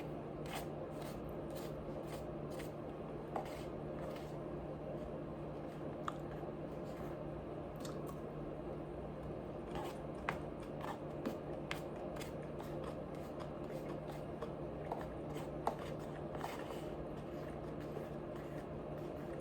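Close-up eating sounds: irregular wet clicks and crunches of food being chewed, over a steady low hum.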